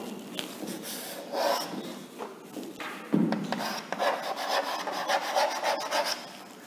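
Chalk scraping on a chalkboard as a word is handwritten: a run of short, irregular strokes with a few sharp taps.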